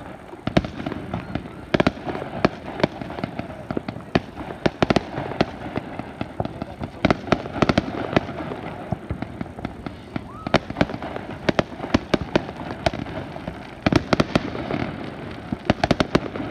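Fireworks display going off: a dense, irregular run of sharp bangs and crackles, several a second, with heavier volleys about two seconds in, around the middle and near the end.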